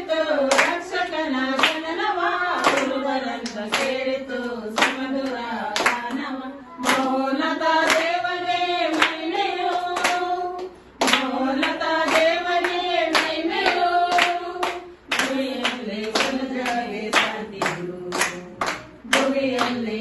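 A group of women and children singing together, clapping their hands in time about once a second.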